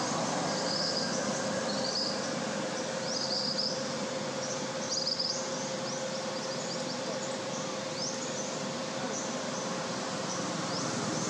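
Outdoor forest ambience: short, high, rising chirps repeating over a steady hiss and a faint steady hum.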